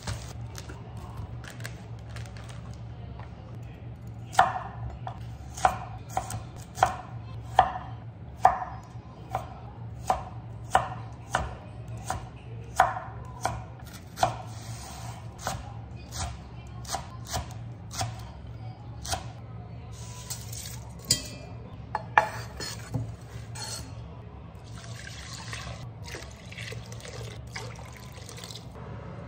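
Kitchen knife chopping leek on a wooden cutting board: sharp, evenly paced knocks of the blade on the board, about one a second. Near the end, water is poured from a jug into a pot of chopped vegetables.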